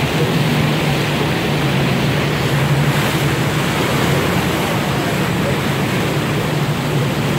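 Cruise boat's engine running steadily with a low hum, under the rush of water churned up in the wake.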